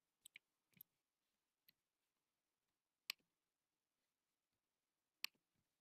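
Scattered sharp clicks from operating a computer, with near silence between them: a few faint ones in the first second or so, then single louder clicks about three seconds in and again near the end.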